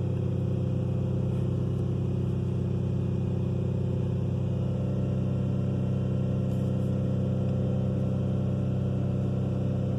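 A Ford 3.5 V6 pickup engine running at a steady speed. It is misfiring almost constantly on cylinders 1, 3 and 6, a fault the mechanic blames on the injectors of that bank.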